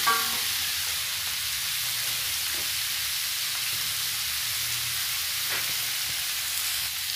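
Cow-skin pieces and spice paste sizzling in a wok, a steady high hiss left to cook without stirring while the skin heats through and softens.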